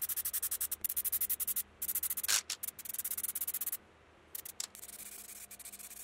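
Rapid back-and-forth rubbing strokes on a board surface, about ten a second, as in hand sanding or scuffing, with brief pauses. The strokes turn fainter after about four seconds.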